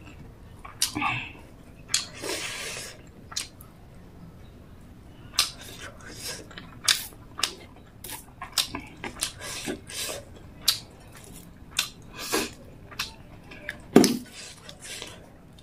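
Close-miked eating sounds: fingers mixing rice with chicken gravy, and mouth chewing with many short wet clicks and smacks. A louder low thump comes near the end.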